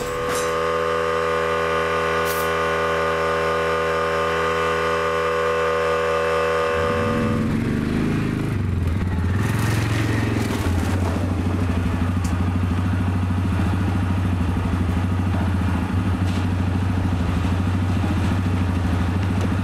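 A small electric air compressor runs with a steady hum for about seven seconds. Then a four-wheeler's engine revs up and keeps running as the ATV pulls away.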